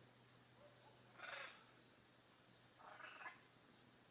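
Very faint animal calls: two short rough calls, about one and three seconds in, with thin descending chirps higher up over a steady thin high tone.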